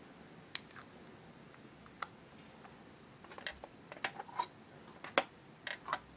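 Light clicks and taps of small hard-plastic toy kitchen pieces being handled: a miniature pot and its lid, then the toy oven's little doors clicked open. There are single clicks at first, then a quicker run of clicks through the second half.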